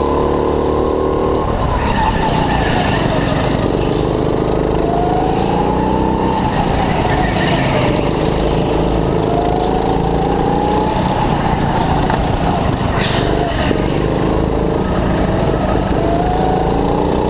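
Racing go-kart engine heard from the driver's seat, its pitch climbing along each straight and dropping into each corner, about four times, with some tyre squeal.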